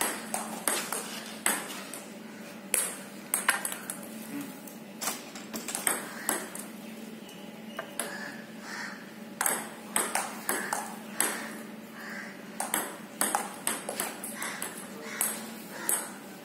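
Table tennis rally: a celluloid ping-pong ball clicking off the table and the rubber of the paddles in quick succession, a few hits a second, with a short lull in the middle.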